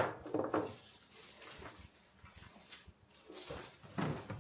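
Unboxing handling noises as a kettle base is taken out of its packaging: a sharp knock at the start, then faint rustling and small clicks, and a thump near the end.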